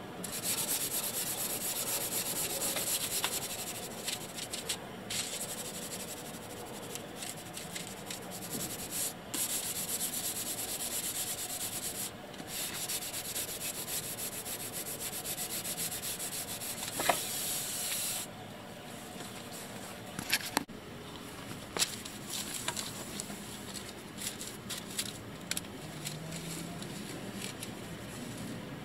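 Hand sanding along a motorhome's faded painted side stripe: a hiss of abrasive rubbing in long strokes with brief pauses. It grows quieter and more broken after about 18 seconds, with a few sharp clicks in the second half.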